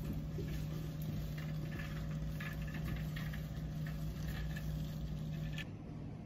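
Shopping cart rolling through a store aisle, light irregular rattling and clicking over a steady low hum. The sound changes abruptly about five and a half seconds in.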